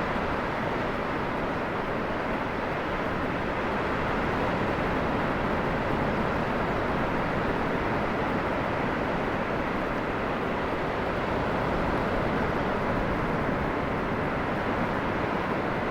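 Steady, unbroken wash of ocean surf breaking along a beach.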